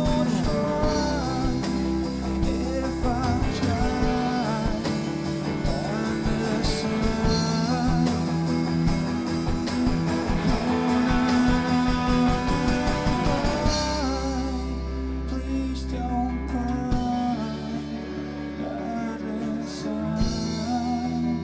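Live rock band playing: drums, electric and bass guitars, and a lead vocal. About two-thirds of the way through, the drum hits drop away and the music thins to a quieter passage of guitars and voice.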